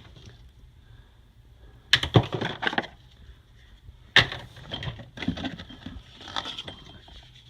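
Plastic food storage containers and lids clattering as they are handled and sorted: two sharp clatters about two and four seconds in, then lighter rattling.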